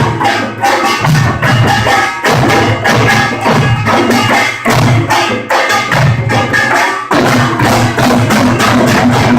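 Pungmul ensemble playing Korean folk percussion: drums and small gongs in a fast, dense, driving rhythm, loud and harsh through a phone's microphone.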